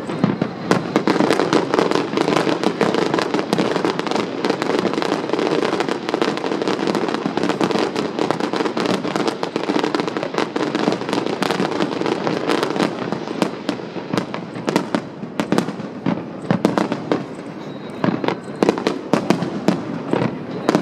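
Fireworks display: a dense, continuous barrage of rapid bangs, thinning in the second half into separate sharp bangs with short gaps between them.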